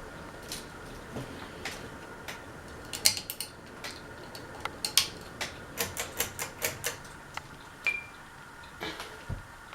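Rusty Quorum hugger ceiling fan running with a faint steady hum, overlaid by sharp irregular clicks and ticks that come thickest in the middle, at about three to four a second.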